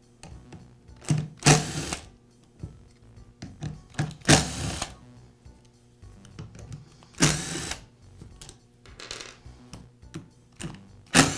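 A Torx driver backs out the screws that hold a DeWALT palm sander's pad and backing plate. It whirs in several short bursts, one every two to three seconds, with small clicks and taps between them.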